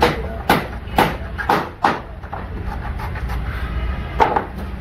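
Sharp wooden knocks: a hand-held block of wood struck on wood at a carpenter's bench, about twice a second for five strokes, then once more about four seconds in.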